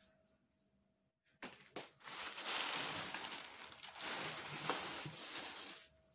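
Plastic bags and bundled vegetables rustling and crinkling as they are handled. It starts about a second and a half in with a couple of sharp crackles, dips briefly, and breaks off just before the end.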